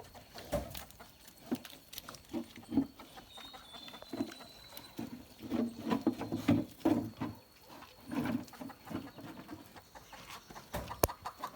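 A pig grunting, a series of short low grunts that come thickest past the middle, with scattered clicks and taps.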